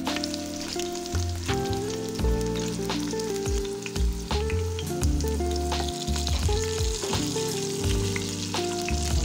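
Onion, carrot and garlic sizzling in oil in a steel pressure-cooker pot, stirred with a spatula that clicks and scrapes against the metal, over background music.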